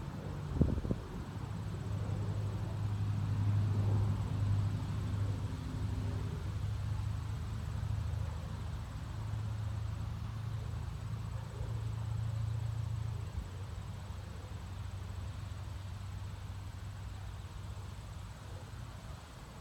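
Wind buffeting the microphone: a low rumble that swells and eases in gusts, strongest in the first two-thirds and dying down toward the end.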